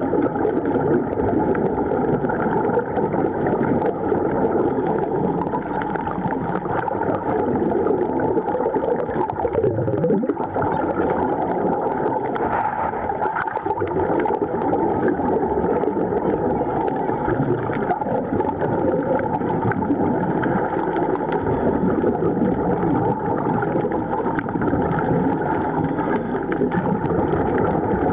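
Steady, dense bubbling and gurgling heard underwater: air bubbles streaming up from divers breathing through a surface-supplied air regulator. A short rising sound comes about ten seconds in.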